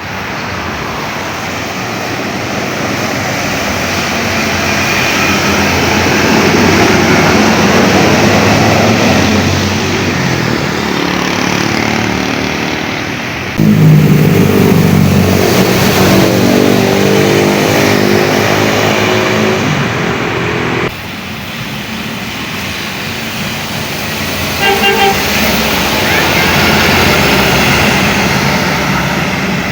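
Indonesian bus 'telolet' multi-tone air horns playing stepped, tune-like sequences of notes over a steady hiss of rain and traffic. The sound cuts abruptly from one bus to the next twice, and a quick run of short beeps comes near the end.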